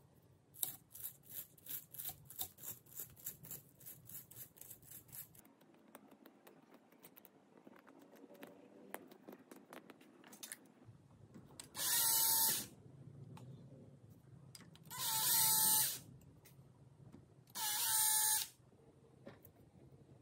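Cordless drill-driver spinning out the three Phillips screws of a rusty vise's swivel-base end cap: three short whirring bursts of about a second each, a few seconds apart. Near the start there is a quick run of clicks.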